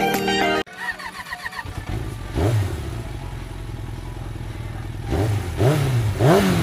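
Motorcycle engine running, revved once about two and a half seconds in and then three times in quick succession near the end, each rev rising and falling in pitch.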